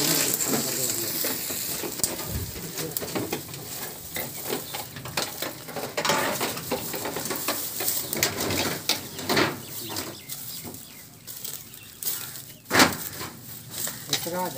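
Dry brush, vines and branches crackling and snapping as they are pulled and dragged out of the undergrowth, with one louder knock or crash near the end.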